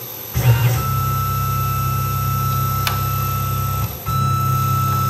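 Tormach PCNC 1100 CNC mill spindle starting up and running steadily with a high whine while a thread-form tap forms threads in a 1/8-inch stainless steel plate. About four seconds in it stops for a moment and starts again, the reversal of the tapping cycle that backs the tap out of the hole.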